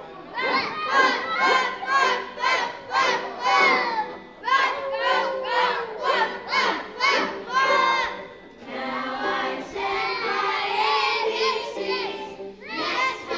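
A group of young children singing together, partly shouted, in short rhythmic syllables about twice a second for the first few seconds, then in longer sung phrases.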